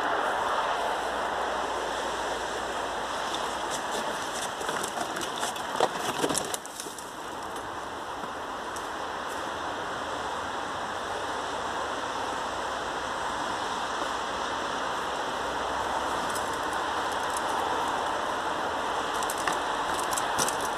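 Steady rushing outdoor noise, with a cluster of sharp clicks and knocks about four to seven seconds in, as the handheld camera is moved and then held still.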